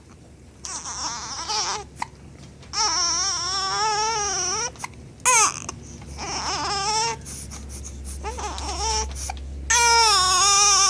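Infant crying in about five wavering wails, the loudest near the end. The baby is fussing angrily over a bout of hiccups.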